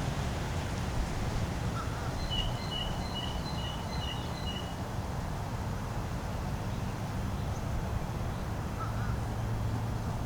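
A bird calling, a quick run of six short, high repeated notes, over a steady low rumble.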